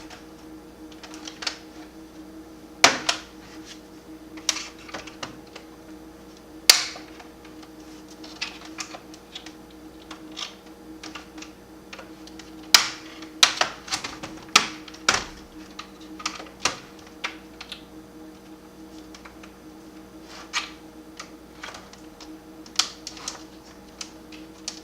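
Plastic snap clips of a laptop's bottom case clicking and popping loose as a flathead screwdriver pries the panel away, in irregular sharp clicks with a few louder snaps. A faint steady hum runs underneath.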